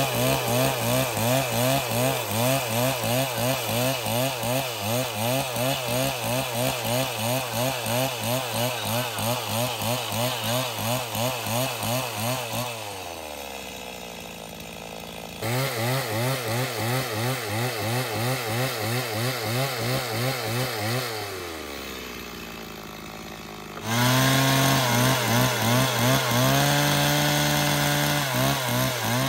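Stihl chainsaw ripping lengthwise along a wooden plank at full throttle, its engine note wavering under load. Twice it drops back toward idle, about twelve seconds in and again about twenty-one seconds in, then revs up and cuts again. It eases off once more near the end.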